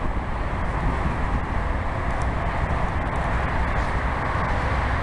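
Wind buffeting the microphone: a steady rushing noise with a fluttering low rumble.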